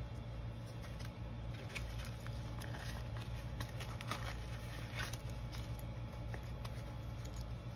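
Stationery being packed into a fabric pouch: paper and plastic sticker packets rustling with scattered light clicks, over a steady low hum.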